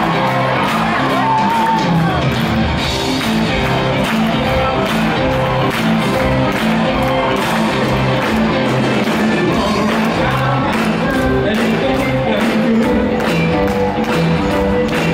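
Live band playing an up-tempo pop-soul song with drums, bass, guitars and keyboards keeping a steady beat, with singing over it.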